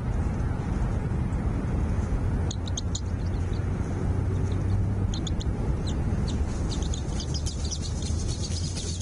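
Small birds giving short, high chirps in scattered clusters, a few at a time, over a steady low hum.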